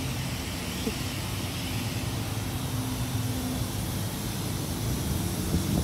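Steady low hum with an even hiss from machinery running at a self-serve car wash.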